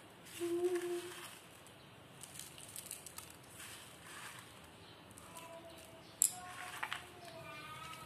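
Faint human voices in the background, with a short hummed note about half a second in and a single sharp click a little past six seconds.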